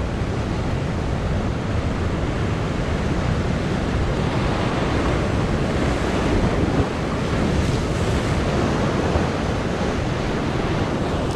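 Ocean surf breaking and foaming below, a steady rush of water, with wind buffeting the microphone.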